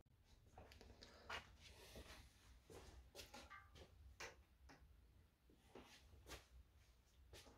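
Near silence: faint scattered clicks and soft knocks from an endoscope camera cable being handled and uncoiled, the loudest about a second in, over a low hum.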